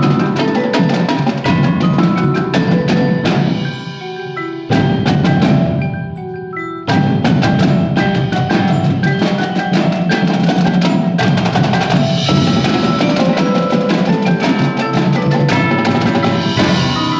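Ensemble music led by tuned mallet percussion and bells over drums and other struck percussion. It thins out twice, and each time it comes back in suddenly and loud.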